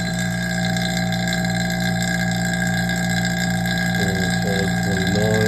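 Electric vacuum pump running with a steady hum of several fixed tones.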